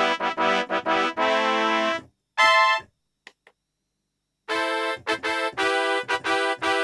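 Kurzweil K2000 synthesizer factory program played dry, with no effects: short detached chords repeated rapidly, a single bright note, a pause of about two seconds, then another run of short repeated chords.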